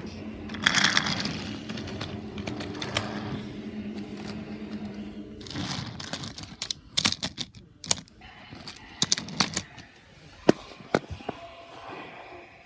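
A small battery toy-train motor hums steadily and stops suddenly about five and a half seconds in. Then come a string of sharp clicks and knocks of wooden toy track and wooden blocks being bumped.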